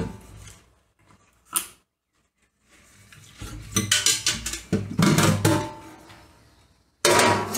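Dishes and glassware clinking and clattering in a kitchen sink as they are washed by hand. There is a single sharp clink about a second and a half in, then an irregular run of clatters with short ringing tones.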